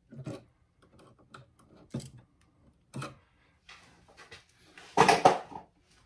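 Clicks and taps of a screwdriver and copper wire working against the screw terminals of a toggle light switch, with three sharp clicks. About five seconds in there is a louder, denser clatter.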